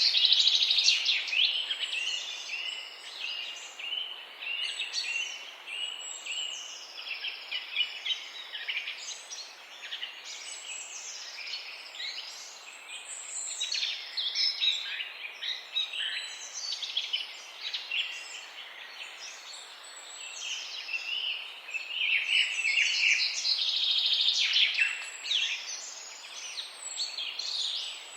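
Several songbirds chirping and trilling together in a dawn chorus, many overlapping high, quick notes over a faint steady outdoor hiss, busiest near the start and again past the middle.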